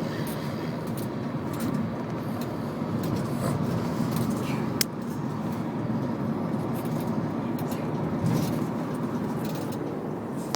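Steady engine and road noise heard inside a moving taxi cab, with a single sharp click about five seconds in.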